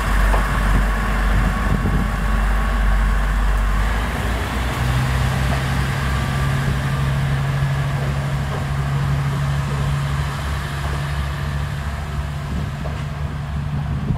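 Diesel railcar engine under load as a rescue railcar tows a broken-down railcar away from the station. A low engine drone shifts to a steadier, higher hum about five seconds in, and the sound slowly fades as the train moves off.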